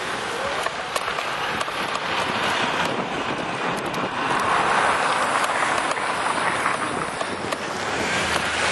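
Road traffic noise and wind on the microphone while riding a bicycle, a steady rushing that swells for a few seconds in the middle.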